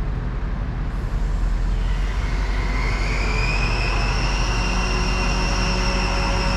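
Crane truck's engine running and picking up about a second in, lifting a cut pine trunk section. A high whine rises around three seconds in and then holds steady over a low drone.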